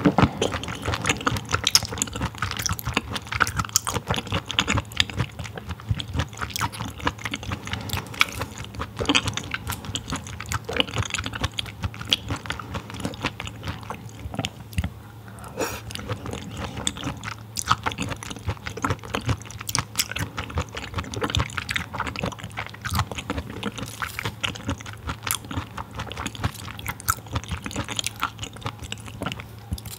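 Close-miked chewing of raw filefish sashimi: soft, wet mouth sounds with many small irregular clicks throughout.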